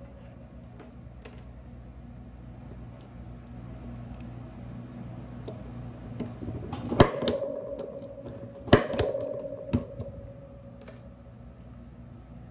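Klein Tools impact punch-down tool with a 110 blade seating Cat6 conductors into a Belden keystone jack: two loud sharp snaps of its spring-loaded impact about two seconds apart in the middle, each leaving a short ring, then a smaller snap about a second later. Light clicks and ticks from handling the jack and wires run between them.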